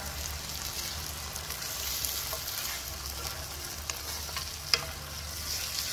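Wooden spatula stirring thick mutton curry in a pan over a steady sizzle of frying, with a few scrapes and clicks of the spatula against the pan, one sharp click near the end.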